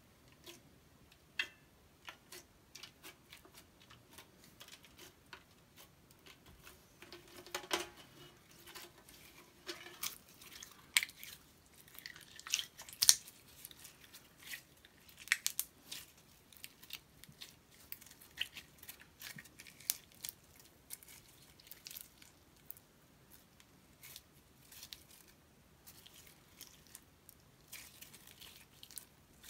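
Blue glitter slime poked, squeezed and stretched by hand, giving irregular sticky clicks, pops and squelches, with one louder pop near the middle.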